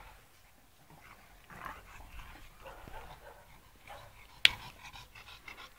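Dogs, a Sarplaninac and a Shar-Pei, playing together, with panting and soft scuffling sounds. A single sharp click comes about three-quarters of the way through and is the loudest sound.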